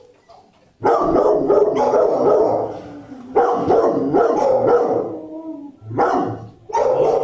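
Shelter dogs barking in the kennels, loud and sustained, starting about a second in and easing briefly about five seconds in before picking up again.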